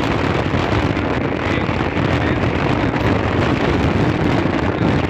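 Wind buffeting the microphone: a steady, loud rumble and rush with no pauses.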